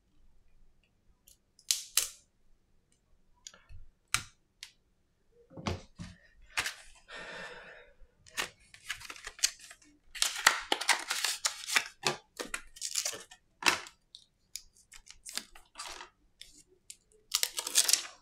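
Hand-work noise: scattered small clicks and taps, then a run of rustling, scraping and tearing of cardboard and plastic packaging as a replacement iPhone battery is unboxed, loudest about ten seconds in and again near the end.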